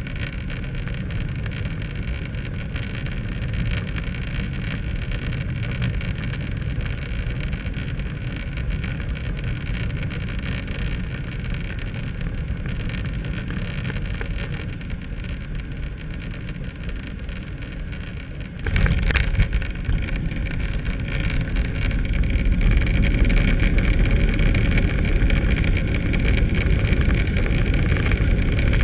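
Cabin noise of a Ryanair Boeing 737-800 on final approach heard at the window: a steady hum of engines and rushing air. About two-thirds of the way through, the main wheels touch down with a sudden thump and the noise jumps to a loud rumble of tyres on the runway. A few seconds later it grows louder still as the engines spool up for reverse thrust, with the spoilers up.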